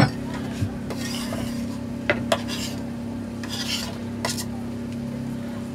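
A utensil stirring and scraping a sizzling crab mixture in a frying pan, with a few sharp clinks on the pan. A steady low hum runs underneath.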